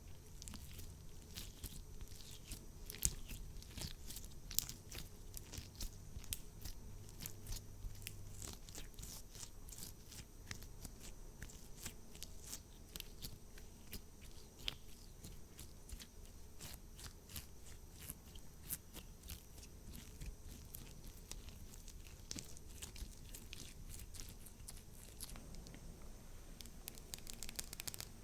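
Close-miked ASMR handling sounds: a steady stream of small sharp clicks, taps and crinkles as makeup items are handled.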